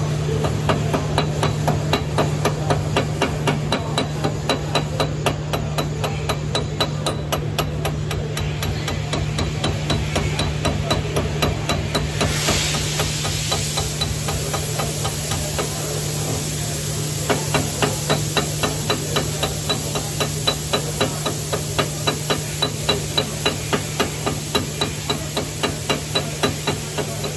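Chipping hammer rapping on a weld bead to knock off the slag: a steady run of sharp metal taps, about three a second, easing off through the middle and picking up again later, over a steady low hum.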